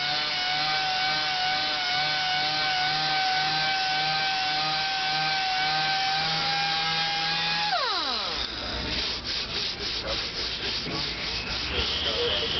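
Random orbital (DA) sander running steadily as it sands a deep scratch out of a Corian solid-surface countertop with 180-grit paper. Near the end it is switched off and its pitch falls quickly as it spins down. Irregular rubbing and scuffing sounds follow.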